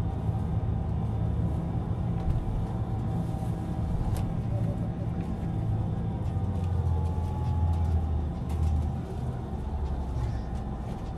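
Bus engine and tyre noise heard from inside the passenger cabin: a steady low rumble that swells for a couple of seconds past the middle.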